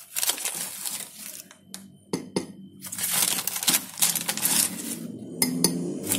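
A few sharp clinks of a metal teaspoon against a ceramic mug.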